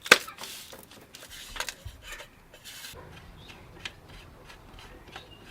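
A sharp click at the start, then a few scattered light clicks and rattles of car parts and tools being handled during engine-bay reassembly.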